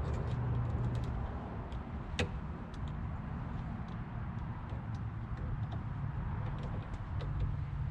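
Small metallic clicks and taps of door-lock hardware and screws being handled, with one sharper click about two seconds in, over a steady low engine-like hum.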